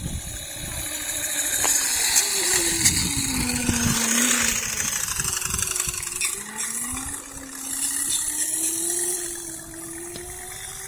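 Small kids' dirt bike's motor whining as it rides: the whine drops in pitch for the first few seconds, fades, then climbs steadily as the bike speeds up again, with low rumbling gusts in the first half.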